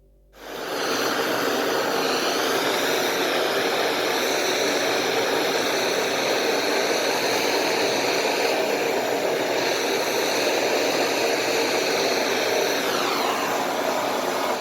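An electric power tool motor running steadily at high speed, such as one used for shaping a wooden handle. Its pitch dips briefly near the end, and the sound cuts off abruptly.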